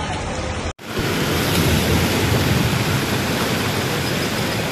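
Steady street sound in heavy rain, cut off sharply under a second in, then the loud, steady rush of fast-flowing floodwater pouring across a road.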